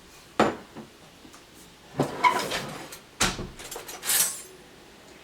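Kitchen clatter of dishes and serving things being handled: a sharp knock about half a second in, scraping and clinking around two seconds, another strong knock a second later, then a short rustle.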